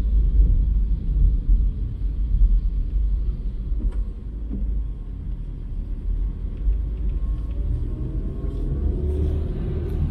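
A car driving: a steady low rumble of engine and road noise, the engine note rising a little near the end.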